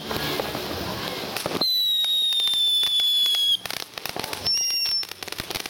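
Ground firework going off: it hisses as it sprays, gives a high whistle lasting about two seconds, then breaks into rapid crackling with a short higher whistle about four and a half seconds in.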